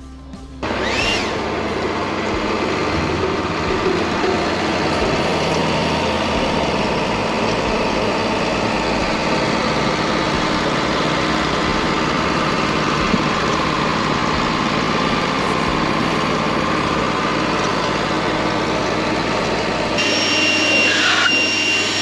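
Wood-Mizer LT40 portable band sawmill running, starting abruptly about half a second in and going steadily; a steady high whine joins in near the end.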